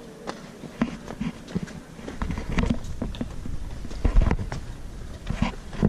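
Footsteps on a concrete and stone path, one step about every half second, with a low rumble coming in from about two seconds in.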